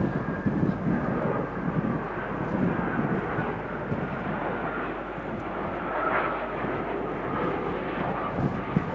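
Jet engine noise from a Boeing P-8A Poseidon's twin CFM56 turbofans as it flies past on approach with gear down: a steady rumble, with a faint high whine that fades out in the first second or two.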